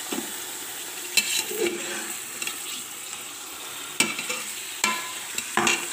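Chicken pieces and onions sizzling in hot oil in an aluminium pressure cooker as they are stir-fried. A steel slotted spoon knocks and scrapes against the pot four times.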